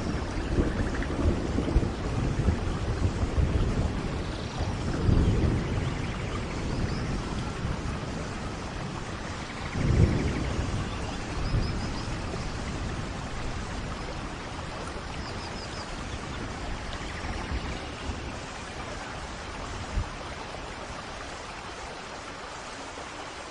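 Steady rain with low rolling thunder, heavier in the first half and swelling about five and ten seconds in, with faint high bird chirps now and then.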